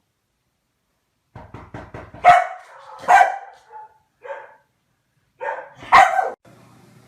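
A dog barking about five times at uneven intervals, the loudest bark near the end, after a quick run of short clicks.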